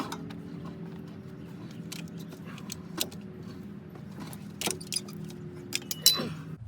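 A few sharp metallic clinks and rattles from hand tools and metal parts being handled, over a steady low hum.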